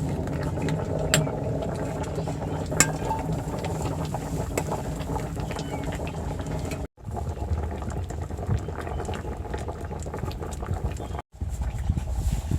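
Cooking pot bubbling at the boil over a wood fire, with scattered sharp clicks. The sound cuts out abruptly twice, about seven and eleven seconds in.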